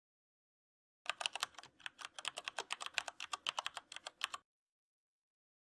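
Computer keyboard typing: a quick run of about thirty keystrokes that starts about a second in and stops after about three seconds.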